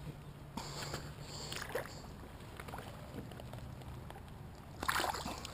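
Water splashing and weeds rustling as a hooked bass caught in the bank vegetation is reached for and pulled from the shallows by hand, with a brief splash about a second in and a louder splash about five seconds in.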